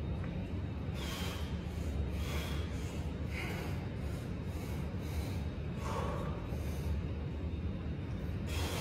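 A man breathing hard through a seated dumbbell shoulder press: about five short, sharp breaths a second or two apart, over a steady low hum.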